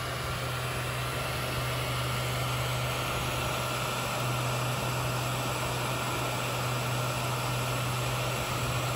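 A 3D printer running during a print: a steady low hum with an even hiss over it.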